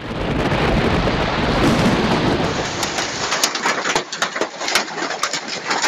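Hailstorm: hailstones pelting down onto the ground, a dense, loud hiss with many sharp clicks of individual stones striking, the clicks standing out more clearly from about halfway through.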